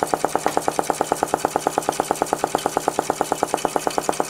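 Homemade Stirling engine running fast, giving a steady, rapid clacking of about seven beats a second.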